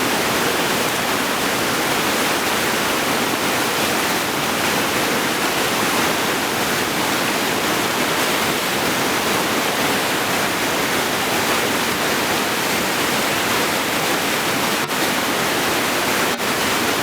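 Whitewater river rapids rushing: a steady, even roar of fast water, with two brief clicks near the end.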